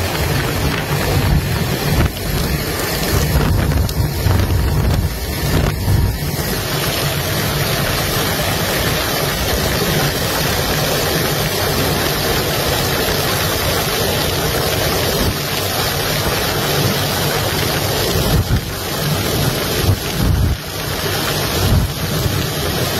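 Loud, steady cabin noise of an aircraft in flight, engine and airflow, with wind buffeting the microphone.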